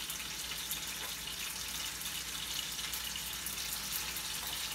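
Meat strips sizzling in a hot skillet: a steady frying hiss with fine crackles.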